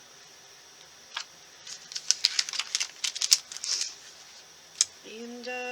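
A quick run of light clicks and taps as craft supplies are worked by hand on the tabletop, with one more single click shortly before the end.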